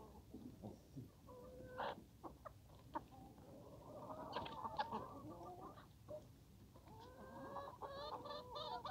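Flock of free-range chickens clucking and calling, faint and sparse at first, with busier clusters of calls around the middle and near the end.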